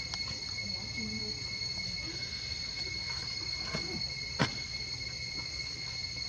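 Steady high-pitched insect drone, with a single sharp click a little over four seconds in.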